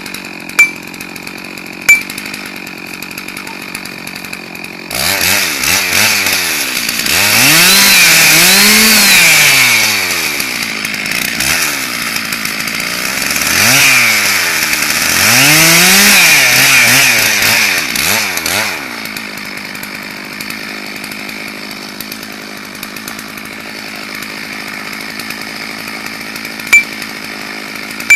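Chainsaw idling, then run up to full throttle twice for several seconds each, the engine pitch climbing and falling as it cuts into the base of a large beech trunk, dropping back to idle in between and afterwards. A few sharp knocks sound over the idle.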